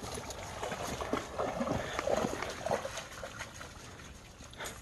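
Dogs jostling and moving about at close range: scuffling and rustling with scattered knocks, and a few short dog sounds a little before the middle.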